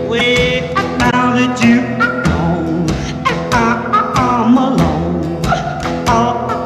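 Background music: a pop-rock song with a sung voice over guitar and a steady drum beat.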